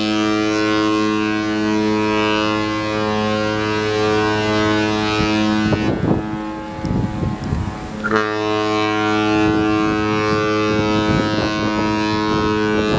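Cruise ship's horn sounding two long, low, steady blasts of about six seconds each, the second starting about eight seconds in: the ship's signal as it leaves port.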